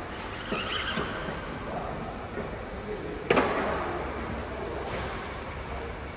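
Toyota Camry driving slowly into a workshop bay, a low steady vehicle-and-shop noise, with one sharp clank about three seconds in.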